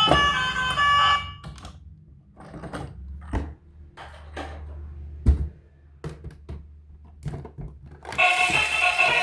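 Plastic toy vehicles being handled: irregular knocks and clicks over a faint low hum, with one louder thunk about halfway through. Music with siren-like tones plays during the first second and starts again near the end.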